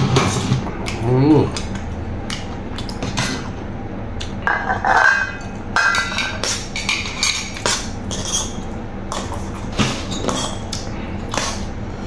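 Metal spoon and fork clinking and scraping against a metal tray while food is scooped up, many short irregular clicks.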